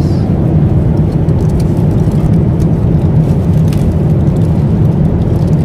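Steady airliner cabin noise in flight: a loud, even low rumble of jet engines and airflow, with a few faint clicks over it.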